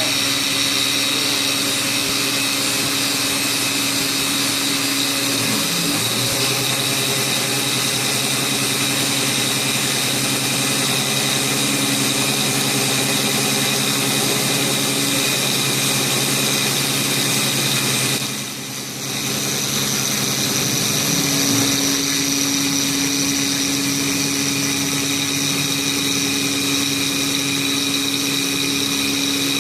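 Prolight CNC milling machine cutting: its spindle and axis motors run with a steady high whine and a low hum. The tones shift twice as the cut moves, and the sound drops briefly about two-thirds of the way through.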